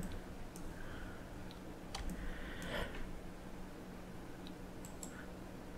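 A few faint computer mouse clicks, spread irregularly, over a low steady electrical hum.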